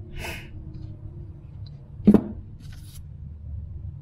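Holley 94 carburetor parts being handled on a workbench: a brief rustle, then a single sharp knock about two seconds in, over a faint steady low hum.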